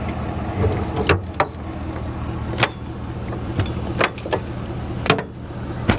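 Tow truck engine running steadily with a low drone, with a handful of sharp clicks and knocks scattered through.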